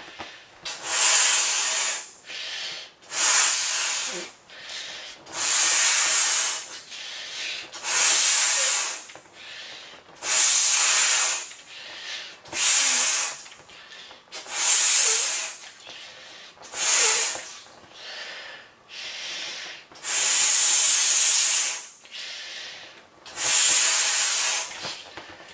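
A large vinyl beach ball being blown up by mouth: about ten long rushing puffs of breath into its valve, roughly every two to two and a half seconds, with quieter breaths drawn in between them.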